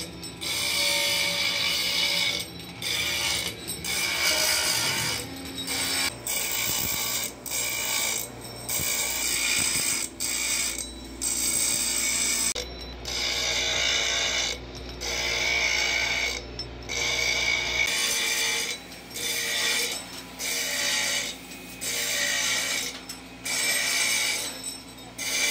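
Background music with a regular pulsing beat.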